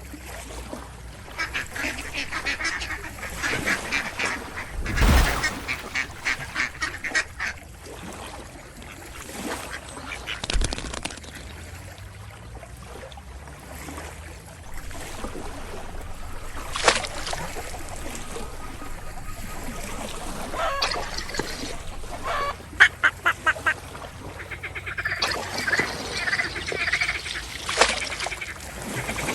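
Ducks quacking in runs of rapid, repeated calls, with a loud thump about five seconds in and a few sharp clicks later.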